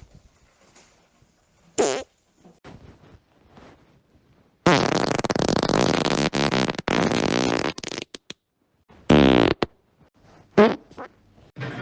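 A series of human farts: a short one about two seconds in, a long pitched one of about three seconds in the middle, then two shorter ones near the end.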